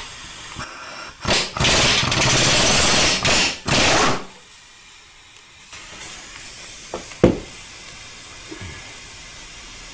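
Air impact wrench hammering a 24 mm water-hose fitting loose from an engine block: a short burst, a long burst of about two seconds, then a short burst. A single sharp click follows about three seconds later.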